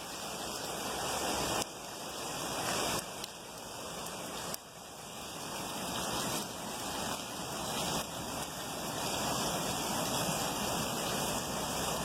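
Heavy rain pouring down in a steady, dense hiss. The level drops abruptly three times in the first few seconds and creeps back up each time.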